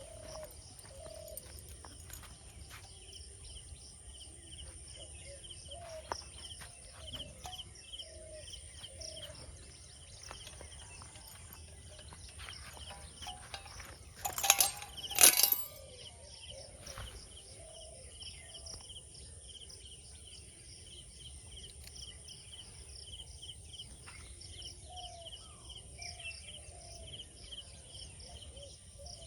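Outdoor ambience of birds calling over and over against a steady insect drone, broken by a loud, brief, noisy burst about halfway through.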